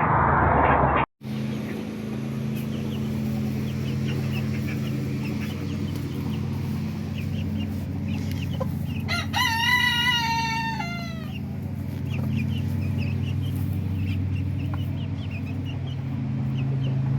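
A rooster crows once, about nine seconds in, its call dropping in pitch at the end. Soft chicken clucks are scattered around it, over a steady low hum.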